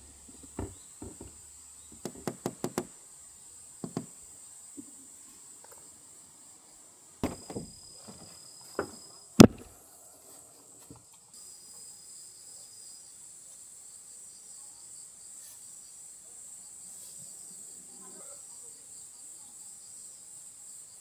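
Insects chirping steadily in a high, even band. There is a scattered series of knocks and clicks in the first ten seconds, the loudest single knock about nine seconds in.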